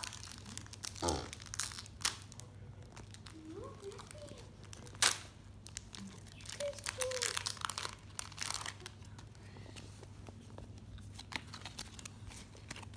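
Foil Pokémon card booster-pack wrapper being crinkled and torn open by hand: irregular crackles, with one louder crackle about five seconds in.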